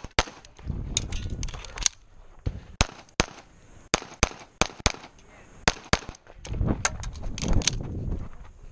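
Semi-automatic pistol firing rapidly, about twenty sharp shots, many in quick pairs, as the shooter engages targets. Two stretches of low rumble lie between the strings of shots.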